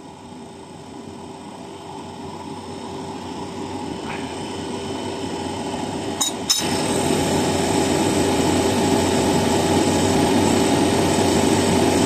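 Old cold-room refrigeration compressor running with a steady mechanical hum that grows louder, stepping up about six seconds in. One short metallic click comes at the same point.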